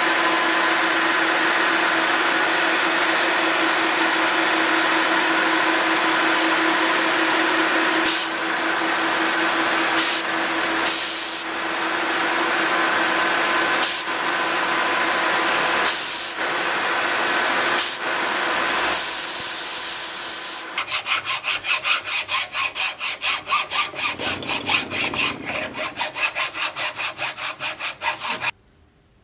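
Vertical milling machine running with a small end mill cutting a groove in a wooden handle block, a steady motor hum under the cutting noise, broken by several short, louder hissing bursts. About two-thirds of the way through the machine stops and the wooden block, clamped in a vise, is worked by hand with quick back-and-forth rubbing strokes, about four a second, which stop shortly before the end.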